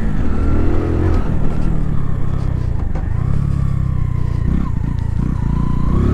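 Mutt Hilts 125 motorcycle's single-cylinder engine running while ridden on the road. Its pitch rises and falls with the throttle, and the note dips briefly a little past halfway.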